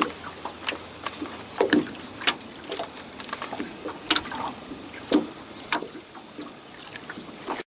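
Irregular knocks and splashes around a small fishing boat as a hooked fish is brought to the net. They come about every half second to second, and the sound cuts off suddenly near the end.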